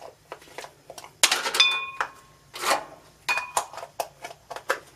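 Kitchen clatter: irregular clicks and metallic clinks of utensils and containers being handled, several ringing briefly, the loudest cluster a little over a second in.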